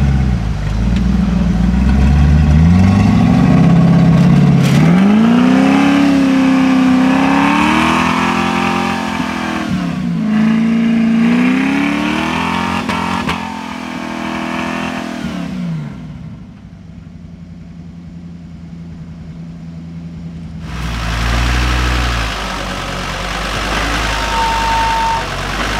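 Off-road Toyota 4x4's engine revving up and down repeatedly as it crawls over boulders, the pitch climbing and dropping several times. The sound goes muffled and quieter about two-thirds of the way through, then a deeper engine runs steadily near the end.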